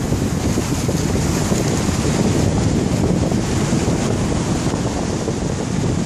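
Wind buffeting the microphone over the steady wash of small waves breaking and running up a sandy beach.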